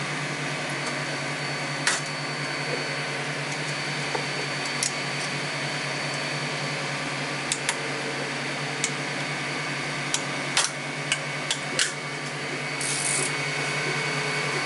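Scraper prying a 3D-printed part off a glass build plate, giving about ten short sharp clicks and scrapes, clustered in the second half, over a steady fan hum from the 3D printer.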